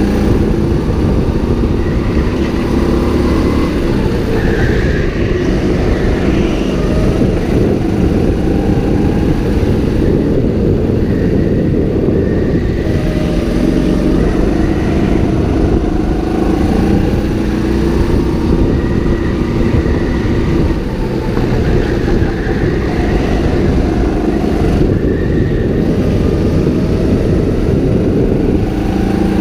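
Go-kart engine running hard from on board, its pitch repeatedly rising under acceleration and falling as the throttle is lifted for corners, over a constant rumble and rattle of the chassis.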